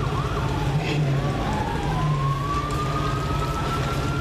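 Emergency vehicle siren changing from a fast yelp to a slow wail: about half a second in the quick up-and-down cycles stop, and the tone then rises slowly and holds high near the end. A steady low engine hum runs underneath.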